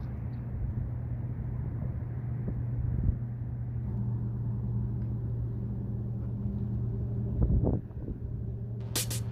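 An engine running steadily, a low even hum over a rumble, with a brief knock about seven and a half seconds in.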